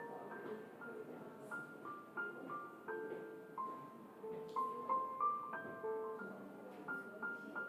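Background music: a gentle keyboard melody of short, steady notes, over a faint even hiss of room ambience.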